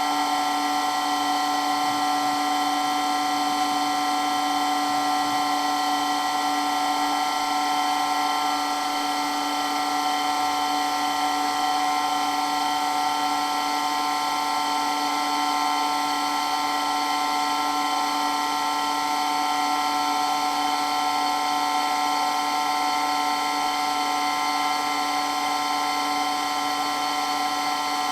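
Water pump motor running continuously with a steady, unchanging whine made of several fixed tones.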